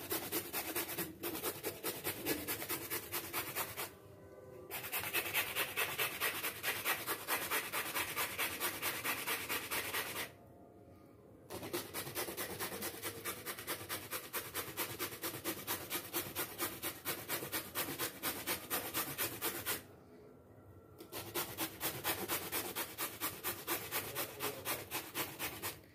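Peeled bottle gourd being grated on a small handheld steel grater: a quick, even rasping of about three to four strokes a second, stopping briefly three times.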